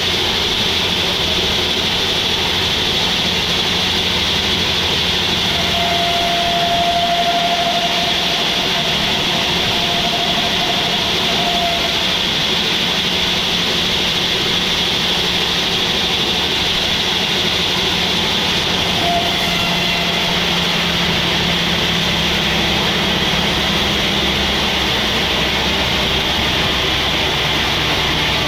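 Sawmill machinery running steadily with a constant loud mechanical noise. A thin whine rises out of it for several seconds about six seconds in, and briefly again near the end.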